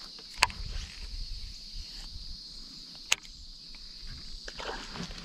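A steady, high-pitched drone of insects over a low outdoor rumble, broken by two sharp clicks, one just after the start and one about three seconds in.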